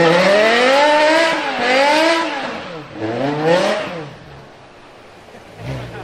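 BMW E60 M5's S85 5.0-litre naturally aspirated V10 revving hard in three rising and falling swells as the car spins its rear tyres in a smoky burnout, then dropping back to a quieter idle after about four seconds.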